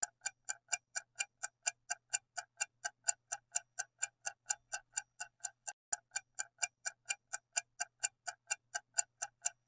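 Countdown-timer tick sound effect, an even clock-like ticking at about four ticks a second, marking the time allowed to answer a quiz question.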